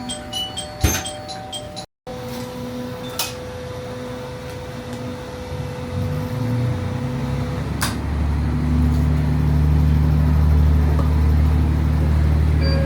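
Diesel railcar engine running up under power, a low drone that grows louder from about six seconds in and then holds steady as the train pulls away; a brief dropout about two seconds in marks a cut in the recording.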